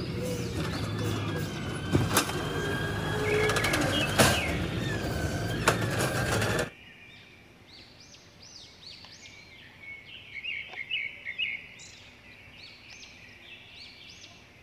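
A garbage truck's engine running, with a thin whine and a few sharp knocks, cutting off abruptly about seven seconds in. After that, birds chirping in short repeated calls.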